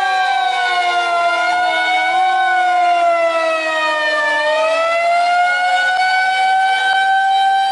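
Siren wailing, its pitch sliding slowly down for about four seconds, then rising back and holding steady.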